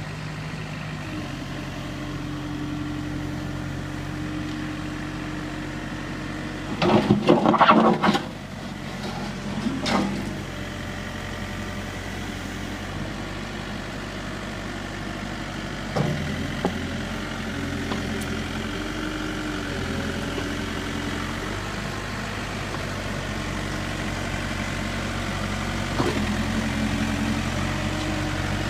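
The diesel engine of a 2008 Case 580 Super M backhoe runs steadily, its pitch shifting slightly now and then. A loud burst of clanking comes about a quarter of the way in, and a few single knocks follow later.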